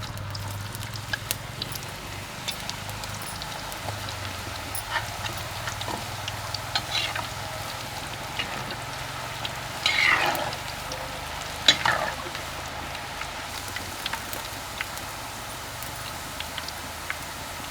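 Food frying in hot oil: a steady sizzle with scattered small pops, and two louder sounds about ten and twelve seconds in.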